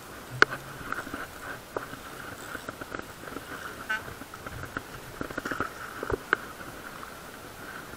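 Scattered light taps and knocks of fishing tackle being handled at the side of a boat, with a short buzzing rattle about halfway through.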